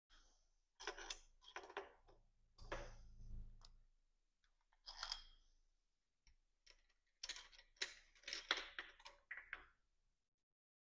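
Light metal clicks and clinks in several short clusters as bolts and bearing caps are handled and set down on the bottom end of a BMW N47 engine. A faint low hum runs briefly about two to three and a half seconds in.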